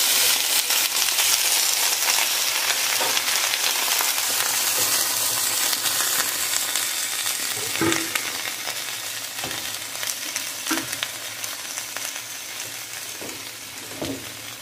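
Chopped carrots, squash and cauliflower sizzling in hot oil just after being tipped into the pot, loudest at first and slowly dying down as they are stirred. A spoon knocks against the pot a few times.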